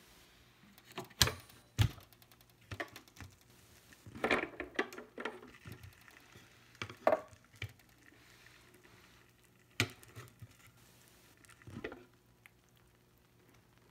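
Slow cooker being opened: its plastic lid latches unclip with two sharp clicks about a second in, followed by softer knocks and rattles as the glass lid is handled, and one more click later on.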